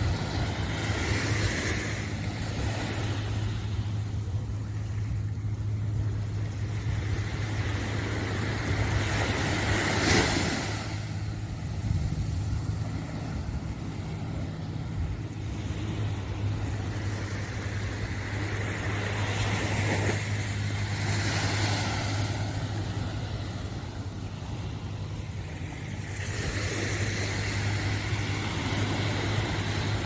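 Small waves breaking and washing up a sandy beach, swelling about every ten seconds, with wind on the phone's microphone and a steady low hum underneath.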